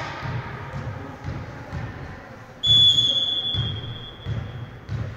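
A referee's whistle blown in one long, steady blast of about two seconds, starting a little under three seconds in, over repeated dull thumps on a wooden gym floor.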